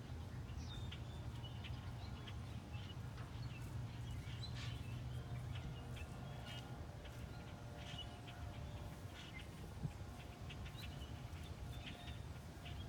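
Dogs barking and yipping faintly in short scattered calls over a steady low hum.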